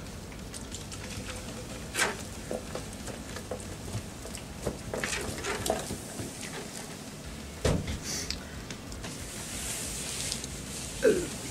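Soft drink poured from a plastic bottle into a plastic cup, with a fizzing hiss near the end, amid a few sharp knocks and clicks of cups and food being handled.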